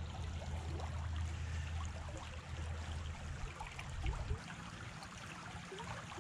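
Shallow river current rushing and rippling over rocks, a steady wash of water. A low rumble sits under it and eases off about four seconds in.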